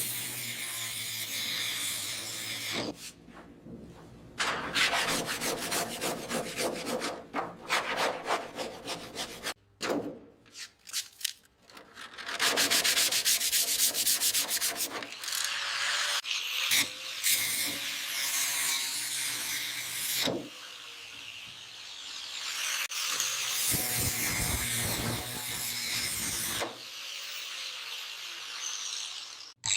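Sanding during car restoration bodywork: abrasive scraping in rapid repeated strokes, in several short stretches that change abruptly from one to the next.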